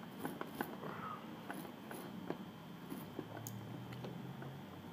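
Soldering iron tip being wiped in a brass-wool tip cleaner while it is re-tinned, giving scattered light scratchy clicks that stop after about three and a half seconds. A faint low hum comes in near the end.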